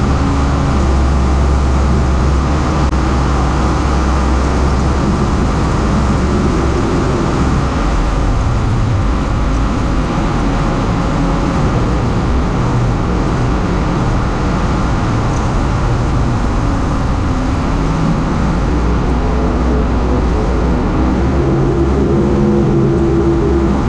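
Steady drone of a single-engine light aircraft's piston engine and propeller in flight, heard from inside the cockpit, with a constant rush of air noise over it.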